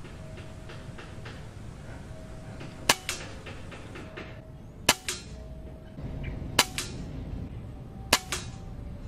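Faint clicking of a riflescope turret being turned, then four rifle shots one and a half to two seconds apart, each with a quieter second crack a split second later.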